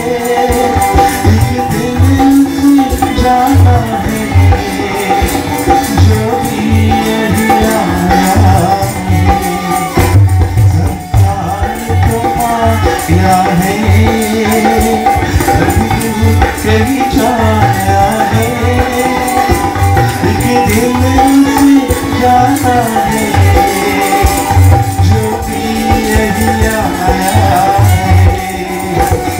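Live bhajan: voices singing a devotional song over a hand drum beating a steady rhythm, with rattling hand percussion.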